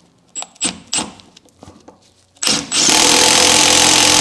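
A few clicks and knocks as the socket is fitted, then about two and a half seconds in an impact driver starts up and runs loud and steady, driving the bolt of a bead breaker clamped to a car wheel to push the tyre bead off the rim.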